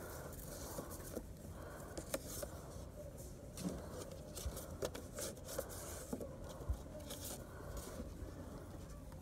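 Greeting cards being handled in a store card rack: scattered light clicks and paper rustles over a steady low background hum.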